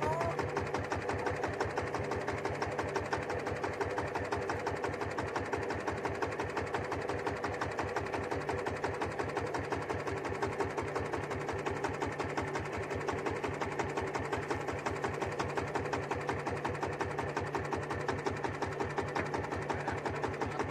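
Small boat engine running steadily at low revs, with a fast, even pulsing beat.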